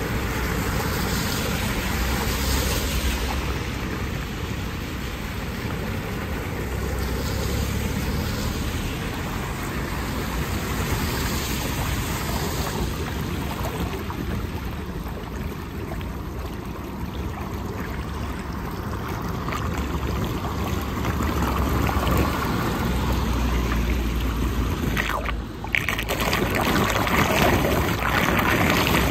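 Floodwater gurgling and swirling down a cleared storm drain grate in a whirlpool, the pooled street water draining freely now that the clog is gone. A van splashes through the flooded road at the start, and the rushing water is louder in the last few seconds.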